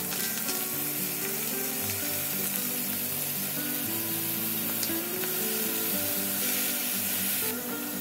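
Raw shrimp sizzling in hot oil in a frying pan.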